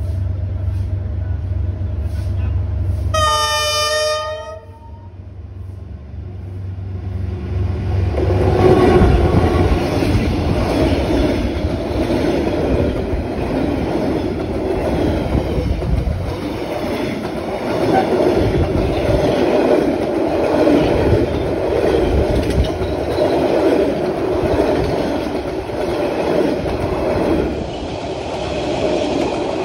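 Passenger train hauled by a D19E diesel-electric locomotive: one horn blast of about a second, about three seconds in, over a low rumble. From about eight seconds the train passes close by, loudest as it first arrives, then the coaches' wheels rattle and clatter steadily over the rails.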